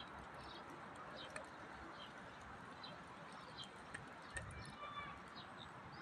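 Faint steady outdoor background noise with scattered short bird chirps, a held call near the end, and a few light clicks.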